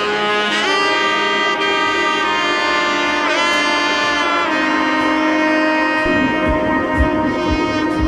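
Background music: a lead melody of long held notes that bend in pitch, over sustained accompaniment, with a steady drum beat of about two thumps a second coming in about six seconds in.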